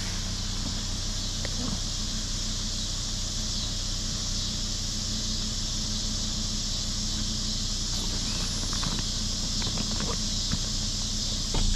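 Deflated inflatable kayak's vinyl skin being folded and rolled up, with faint crinkles and rustles in the second half, over a steady high drone and a low steady hum.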